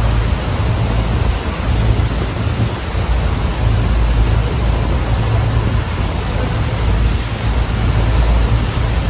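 Steady roar of Niagara Falls' crashing water, a dense rushing noise, with wind buffeting the microphone in uneven low gusts.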